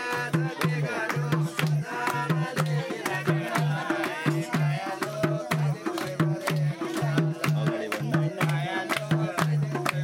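Nepali dohori folk singing: voices singing over a hand drum beating a steady rhythm about twice a second, with hand claps on the beat.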